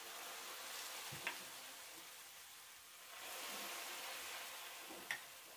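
Burma baklava sizzling with a steady hiss as syrup is ladled over it in a metal tray; the hiss swells about three seconds in. Two sharp clicks of the metal ladle against the tray.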